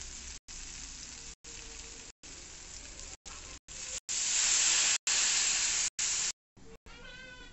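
Onion-tomato curry masala sizzling in oil in a hot pan, cut by short regular gaps of silence. From about four seconds in, water is poured onto the hot masala and the sizzle turns into a much louder hiss for about two seconds, then dies down as the liquid boils. Near the end a cat meows briefly.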